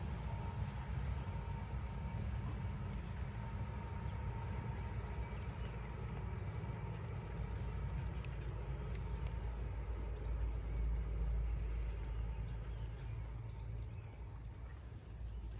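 Small birds chirping briefly every few seconds over a steady low rumble.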